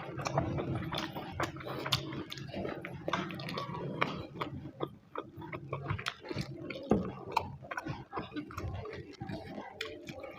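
Close-miked eating of rice with fish curry and egg curry: wet chewing and smacking with many irregular small clicks.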